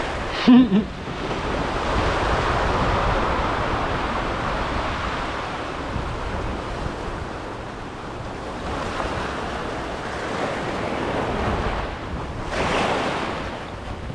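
Ocean waves washing in over a rocky shoreline, with wind on the microphone. The wash swells and ebbs, with a stronger surge of surf about 12 to 13 seconds in. A brief loud sound comes about half a second in.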